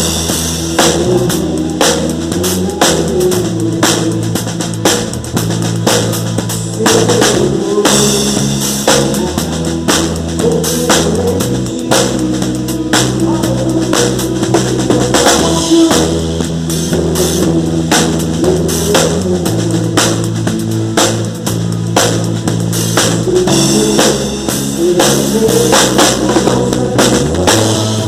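A live Christian worship band playing, with a drum kit keeping a steady beat on bass drum and snare over bass and other pitched instruments.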